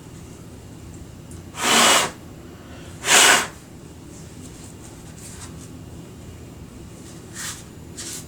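Two short, loud hissing bursts, about a second and a half apart.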